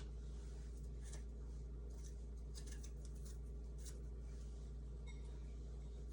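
Faint scraping and light clicks of seeds being picked out of small watermelon cucumbers, over a steady low hum.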